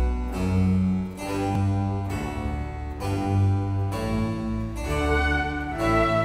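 Background music: a classical-style piece led by harpsichord, with bowed strings underneath.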